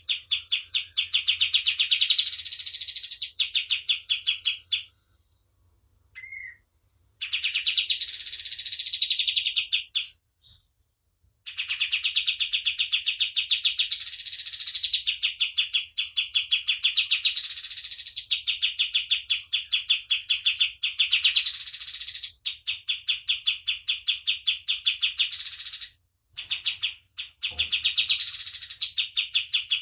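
Kapas tembak bird singing: long, fast, buzzing trills held at one pitch, each ending in a short higher rising flourish, repeated with brief pauses between phrases.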